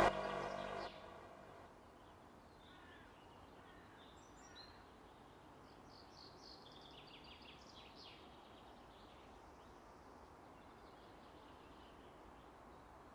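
Music that breaks off in the first second, leaving faint outdoor ambience with birds chirping. The chirps are busiest between about three and nine seconds in.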